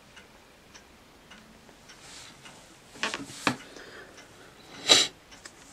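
Rustling and handling of a plastic-bagged comic book as it is set up on a table, loudest about three seconds in and again near the end. Under it, faint steady ticking, a little under twice a second, like a clock.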